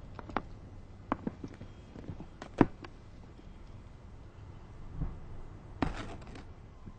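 A few scattered light clicks and knocks, the loudest about two and a half seconds in, then a dull thump about five seconds in and a short cluster of knocks soon after.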